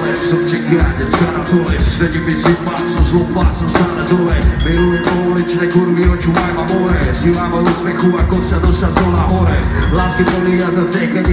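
Live band music playing loud through a concert PA, with a steady drum-kit beat and heavy bass, heard from within the crowd.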